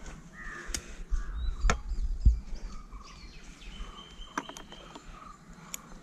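Outdoor ambience with scattered bird chirps over a low rumble, broken by several sharp clicks and knocks as climbing gear is handled.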